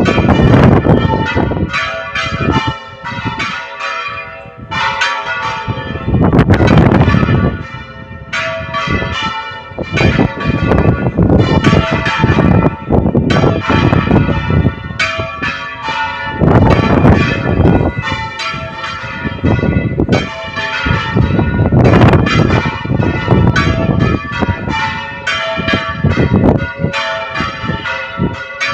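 Several church bells of different pitches ringing together in a dense run of strokes, with heavier, louder clangs recurring every few seconds.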